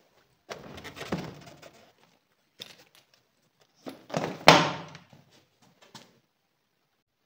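Bajaj Dominar 400 motorcycle seat being set back on the frame and pressed down: rubbing and shuffling of the seat against the bodywork, then a sharp click-thunk about four and a half seconds in as it is pushed home.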